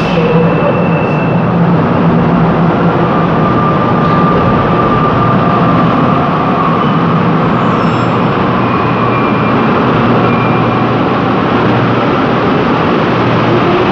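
Santiago Metro NS-07 rubber-tyred train standing at the platform, its equipment giving a loud, steady hum while the doors close. Near the end it starts to pull away, and a rising whine comes in as it accelerates.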